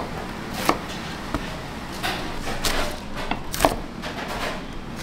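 Kitchen work in a cafeteria: about eight irregularly spaced knocks and clacks over a low background.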